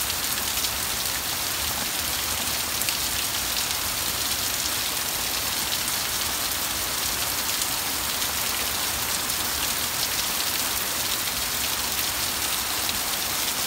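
Heavy rain falling steadily: a dense, even hiss of downpour with countless small drop impacts, unchanging throughout.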